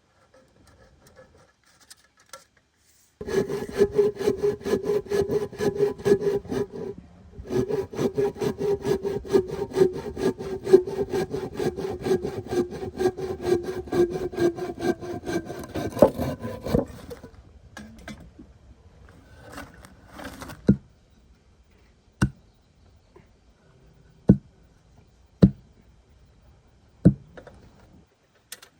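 Hand saw cutting through wood in quick, continuous strokes, with a steady ringing tone under the strokes; the sawing pauses briefly about seven seconds in and ends at around seventeen seconds. Then several separate sharp knocks.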